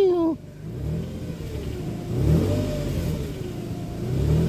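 2007 Nissan Pathfinder's 4.0 L V6 revved up and down in several swells, with a whine that rises and falls with engine speed. The owner traces the whine to the 5-speed automatic transmission, where it was caused by old transmission fluid.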